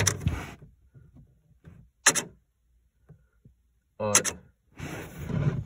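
A single short, sharp plastic click about two seconds in, from fingers handling the charge-port locking-pin actuator and its release arm, with a few faint ticks around it.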